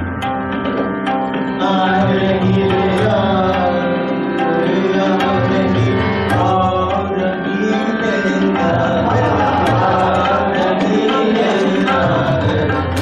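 A man singing a Hindustani classical bandish in long, gliding held notes, accompanied by harmonium and tabla.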